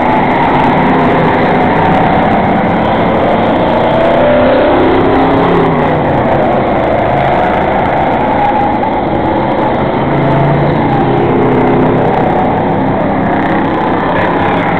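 Pack of enduro race cars running laps on a paved oval: a loud, continuous engine din, with engine pitches drifting up and down as cars come past.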